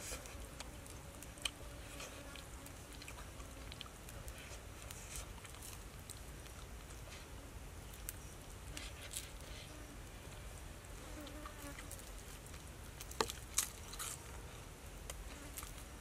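Forest ambience with insects buzzing, over scattered small clicks and ticks; near the end, two sharper clicks come close together.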